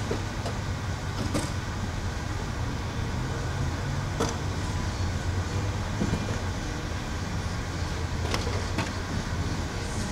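1972 Dodge Challenger's engine idling, heard close up from the front grille: a steady low rumble, with a few faint clicks.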